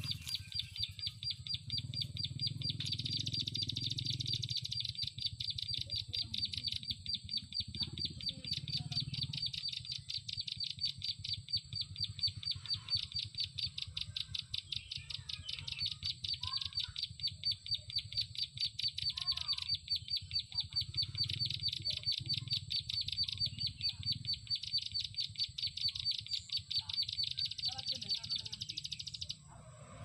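Plain prinia (prenjak sawah) chattering call: a fast, even run of chirps repeated without a break, cutting off suddenly near the end.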